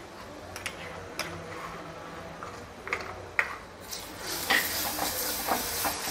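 Steel spoon scraping and tapping ground ginger-coconut paste out of a mixer jar into a steel pan, a few sharp clicks. About four seconds in, sizzling and stirring begin as the paste is worked into the hot oil.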